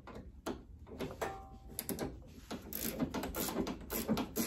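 Ratchet wrench clicking as it works loose the nut on a rear sway bar end link. The clicks come sparse at first, then fast and thick from about halfway in.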